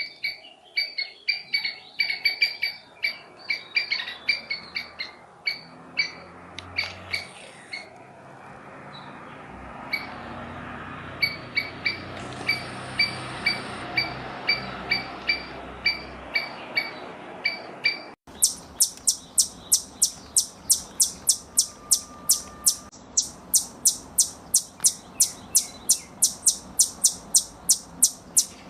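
Squirrel alarm calls: short, sharp, high chips given in quick runs. About 18 s in the sound changes abruptly to a steady, rhythmic series of sharp calls at about four a second.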